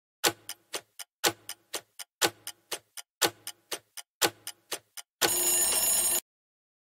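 Countdown timer sound effect: clock ticking about four times a second, with a louder tick on each second for five seconds. It ends in a one-second alarm that cuts off suddenly as time runs out.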